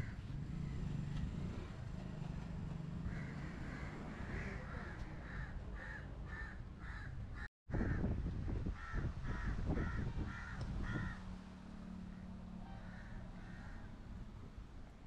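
Crow cawing in a fast series of short, harsh calls, about two to three a second, over a low rumble of wind and handling noise, with a momentary dropout partway through.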